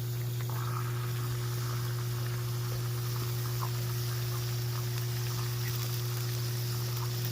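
Food sizzling and steaming on a propane flat-top griddle, a steady hiss over a constant low hum.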